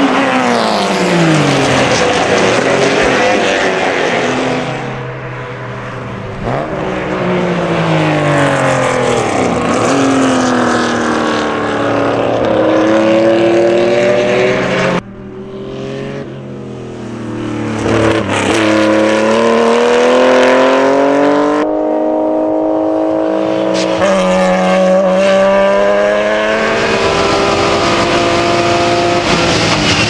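Race cars passing at speed: the BMW M3 E36's 3.2-litre straight-six and a classic Porsche 911's flat-six. Their engine notes climb through the gears and drop as each car goes by, with several abrupt cuts between passes.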